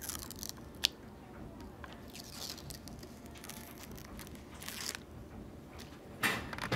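Thin protective plastic film being peeled off a digital pocket scale's stainless steel platform, crackling and crinkling in small bursts, with a sharp click about a second in and a louder burst of noise near the end.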